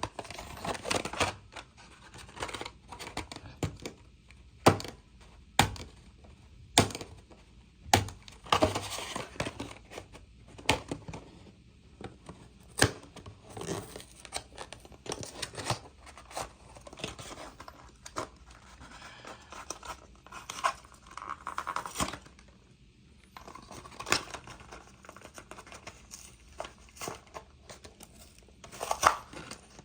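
A Matchbox die-cast car's blister-card package being opened by hand: cardboard tearing and plastic crinkling, with many sharp clicks and knocks scattered through.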